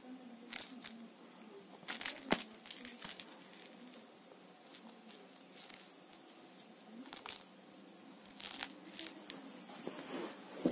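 A cat's claws and paws scratching and scuffling on a fabric bedspread as it grabs and bites a fur toy mouse. The short scratchy scrapes come several times, the loudest about two seconds in.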